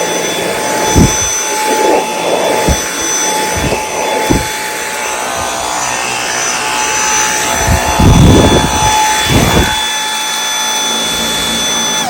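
A Dyson V8 cordless handheld vacuum runs with a steady high motor whine, with several short rattling bursts as debris is sucked up. It is switched off right at the end and its whine starts to wind down.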